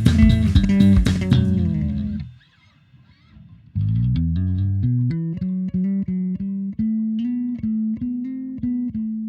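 Warwick RockBass Corvette SS five-string bass with passive pickups, played unaccompanied. A busy, percussive phrase fades out about two seconds in; after a short pause comes a melodic line of single plucked notes, ending on a held note left ringing.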